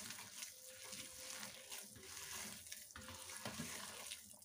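A hand squeezing and kneading a wet mixture of chopped spinach, onion and gram flour in a steel bowl: faint wet squelching and rustling in repeated strokes. The salted spinach and onion are giving off their own water, so the batter is moist without any added water.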